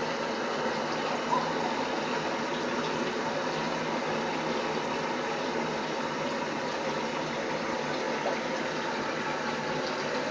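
Bathtub faucet running steadily into the tub, a constant rushing hiss with a faint steady hum under it.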